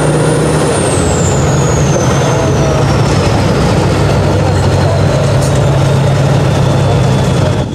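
Tatra 815 6x6 trial truck's diesel engine running steadily under load as the truck crawls over a steep dirt crest, with a thin high whine that falls in pitch over the first few seconds.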